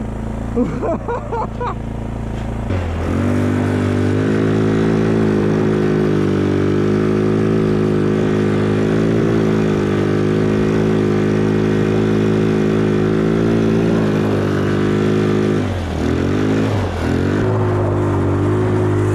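150cc GY6 single-cylinder four-stroke engine running. It climbs from a low idle to a steady higher speed about three seconds in and holds there, then eases off and picks back up around sixteen seconds in.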